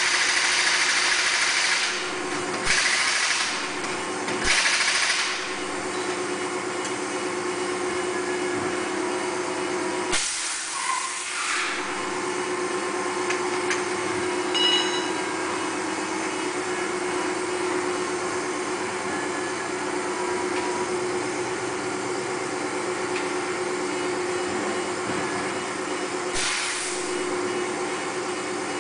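Truck tyre changer machine running, a steady motor hum, with a few short bursts of air hiss.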